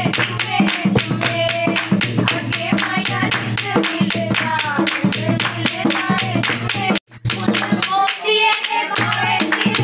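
Dholak drum played by hand, with a steel spoon clacking a steady beat on its shell, while people sing and clap along in the traditional dholki style. The sound breaks off for a moment about seven seconds in.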